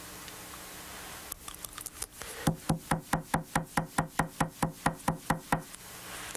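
Fly-tying hair stacker being tapped on the bench to even the tips of a bunch of elk hair. A few soft clicks, then a fast, even run of sharp knocks, about seven a second, lasting about three seconds.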